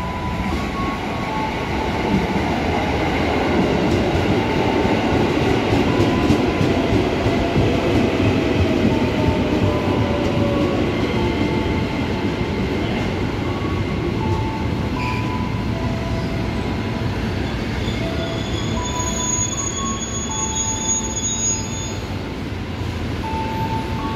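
KRL Commuter Line 205-series electric train pulling into a station and braking to a stop: steady wheel rumble and clatter, loudest about a quarter of the way in as the cars pass close, with steady squeals from wheels and brakes and a slowly falling tone partway through.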